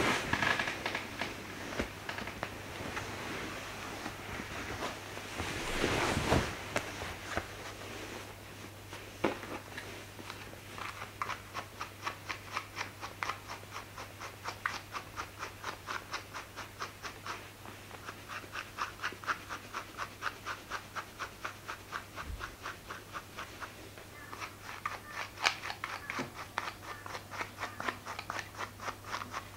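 A slicker brush stroking through a toy poodle's curly coat: short scratchy strokes in a quick, even rhythm. Fabric and sofa cushions rustle in the first few seconds before the brushing settles in.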